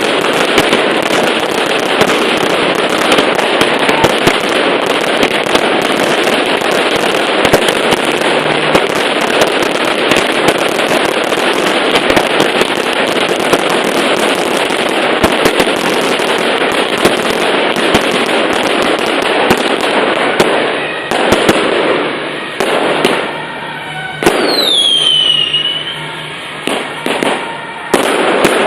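Fireworks display going off in a dense, continuous barrage of crackling and bangs, thinning after about twenty seconds into separate blasts that each die away. Near the end a high whistle falls in pitch.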